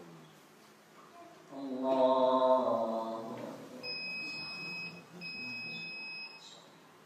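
An imam's voice chanting one long, held phrase of the prayer recitation. Then come two steady electronic beeps, each about a second long.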